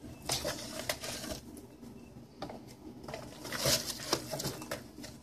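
Intermittent rustling and a few soft clicks as a cat shifts in a cardboard box on top of packaging, the busiest stretch about three to four seconds in.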